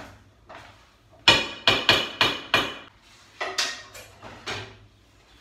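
Kitchenware clanking at the stove: five quick, sharp knocks with a ringing tone, then a few lighter knocks.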